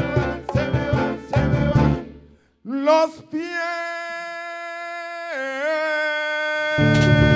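Male lead singer with an Afro-Peruvian band and hand percussion, performing live. The band stops about two and a half seconds in, and the singer slides up into one long solo note that steps down a little about five seconds in. The full band comes back in under the held note near the end.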